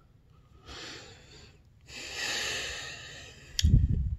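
A person breathing out heavily through the nose twice: a short breath about a second in and a longer one from about two to three seconds. Near the end comes a sharp click and a loud low bump.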